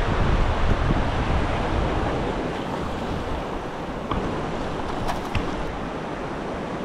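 Surf washing onto a sandy beach, with wind buffeting the microphone that eases after about two seconds. A few faint clicks come about four and five seconds in.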